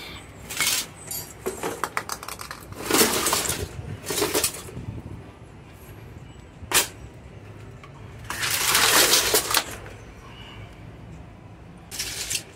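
Scrap electronics and wooden crates being handled and shifted on a tiled floor: irregular rattles and clatters, a sharp knock about seven seconds in, and a longer scraping stretch around nine seconds.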